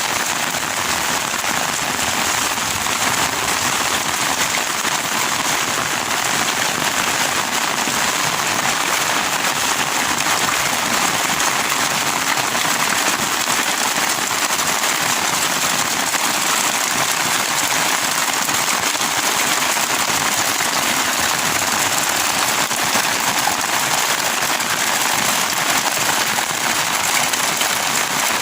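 Heavy rain pouring down steadily: a dense, even hiss of drops with a fine crackle in it.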